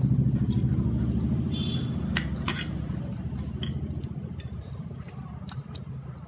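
A low engine rumble, loudest at the start and fading away steadily, like a motor vehicle moving off. Over it come a few light clicks of a metal fork and spoon against a plate.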